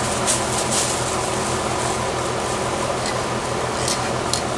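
Steady mechanical hum with a low drone and an even hiss, broken by a few brief, short high hisses.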